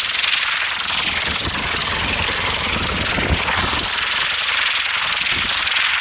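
TAM hydrogen-peroxide rocket engines on the rotor tips of the Intora rocket helicopter in flight: a steady, loud rushing hiss with a fast flutter from the spinning blades.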